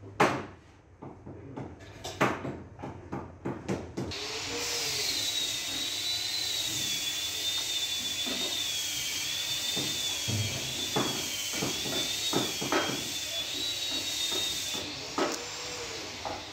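A few light knocks and taps, then a steady machine noise starts about four seconds in: a hiss with a wavering high whine. It runs for about ten seconds and stops near the end, with a few clicks over it.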